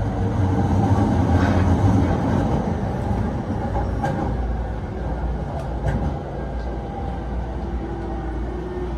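Interior running noise of a JR Chūō-Sōbu Line commuter train at speed: a steady low rumble of wheels on rail, with a few sharp clicks about 4 and 6 seconds in.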